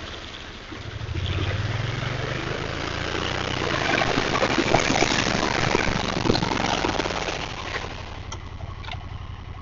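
A motor vehicle's engine running while it drives, with a rough, rattly noise over the engine. It eases off near the end as the vehicle pulls in and slows.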